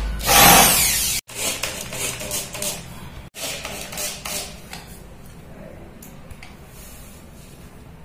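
Electric hand drill boring a hinge-cup hole in a plywood cabinet door, stopping about a second in; then a few seconds of light clicks and knocks as the metal concealed hinge and the drill are handled, dying away to a low background.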